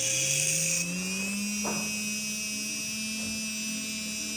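555-size brushed DC motor, rewound with thicker 20-gauge copper wire, running at very high speed: its hum rises in pitch over the first second or so as it spins up, then holds steady with a high whine over it.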